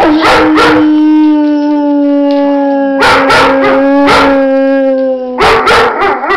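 German Shepherd dog howling on being asked to sing: one long howl held on a nearly steady pitch for about five seconds, sinking slightly before it ends, with short sharp barks cutting in several times.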